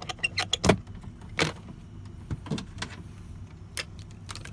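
Irregular sharp clicks and light knocks from handling tools and parts at a truck's fuse box, a quick run of them in the first second and then single ones every second or so, over a steady low hum.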